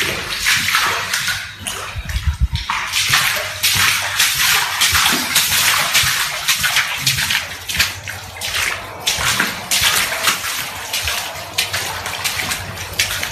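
Someone wading through floodwater on an indoor floor, the water sloshing and splashing in surges about once a second, with a low thump about two seconds in.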